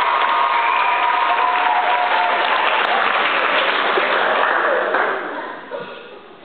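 Audience applauding and cheering, with a few shouts at first; the applause dies away near the end.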